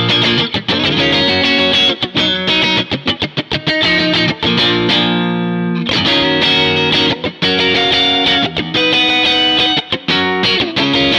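Electric guitar playing choppy funk-style chord stabs through a Strymon BigSky reverb pedal on a short plate reverb setting, with one chord held and left to ring about halfway through.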